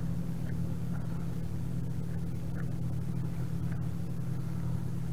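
A motor running with a steady, even low drone, holding the same pitch throughout, with a few faint clicks over it.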